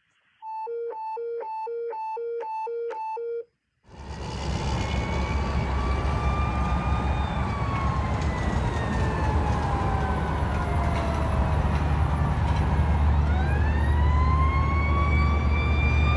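A two-pitch electronic beeping, alternating high and low about twice a second, for about three seconds. Then, after a brief gap, a fire truck's engine runs loud under its Q mechanical siren, which winds down slowly and winds back up near the end.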